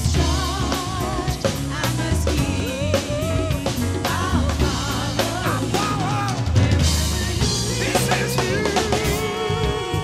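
Live gospel band playing, with the drum kit driving a steady beat over bass and keyboards. The band settles into a held chord near the end while the drums keep going.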